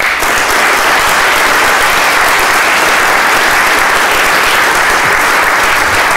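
Audience applauding loudly and steadily, breaking out all at once.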